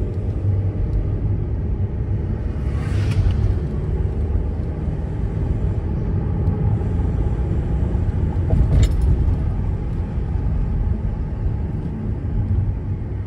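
VW California camper van driving up a mountain road, heard from inside the cab: a steady low rumble of engine and tyres. A brief hiss comes about three seconds in and a short click near nine seconds.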